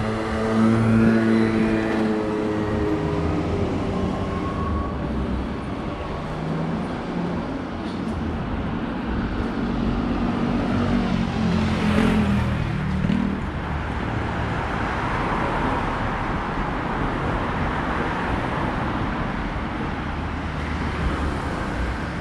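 Road traffic on a city street, with vehicles passing close by. Over the first few seconds a motor whine falls in pitch, and a sharp click comes about halfway through.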